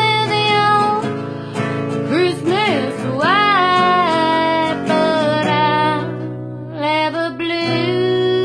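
A singer holding and sliding between long notes, with vibrato, over an acoustic guitar, ending on a long held note.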